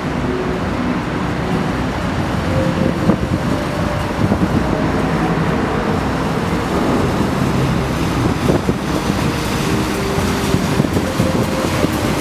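Outboard motors of a large rigid inflatable boat running steadily as it cruises past, with wind noise on the microphone.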